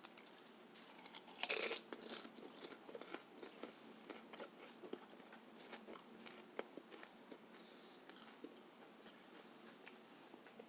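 A person biting into a crunchy snack about one and a half seconds in, then chewing it quietly with small crunching clicks.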